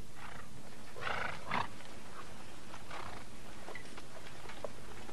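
Horses moving about: a handful of short noisy sounds, the loudest a little over a second in, over a steady low background hiss.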